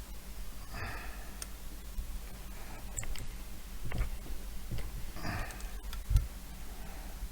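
Scattered light clicks and taps of small hand tools working a photo-etched metal hinge to bend it, with a heavier knock about six seconds in and a couple of soft breaths.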